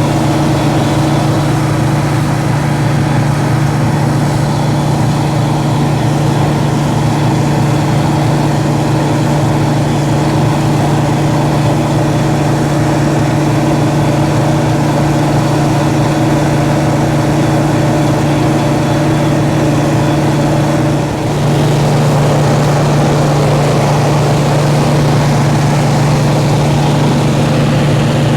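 A nearly 40-year-old combine harvester running steadily while harvesting barley, its engine and threshing machinery making a constant low drone. About 21 seconds in, the sound dips briefly, then carries on a little louder.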